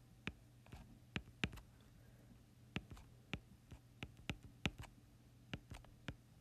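Faint, irregular clicks of a stylus tip tapping on a tablet while handwriting, a dozen or so taps over a low steady hum.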